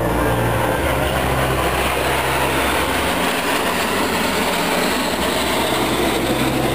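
A formation of Aero L-39C Albatros jet trainers flying overhead, their turbofan engines making a steady rushing roar.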